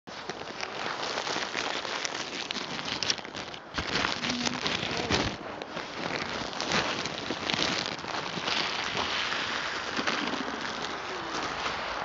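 A crinkling plastic bag of mixed birdseed, with seeds rattling and pattering as a hand digs in and scoops up a handful close to the microphone.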